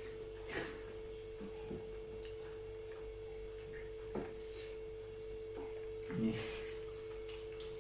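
Quiet eating noises during a meal of curry and rice: a few soft, brief mouth and chewing sounds, over a faint steady hum tone.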